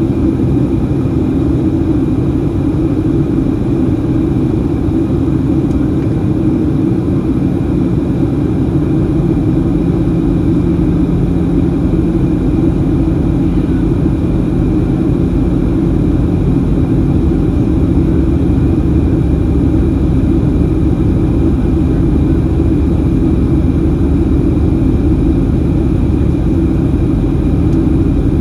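Cabin noise of a Boeing 737-700 on approach, heard from a seat by the wing: the steady drone of its CFM56-7B engines and airflow. A low steady hum joins about nine seconds in.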